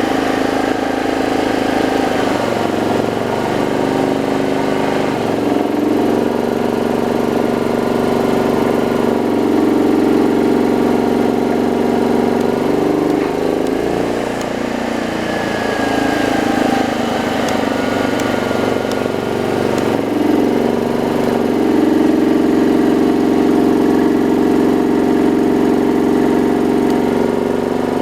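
T2500H portable generator's engine running steadily, its pitch stepping up and down several times as engine speed changes. The unit is short of output, a fault traced to a stiff carburettor throttle shaft.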